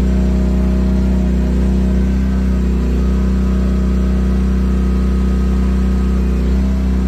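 Small Chinese mini excavator's engine running steadily at working speed.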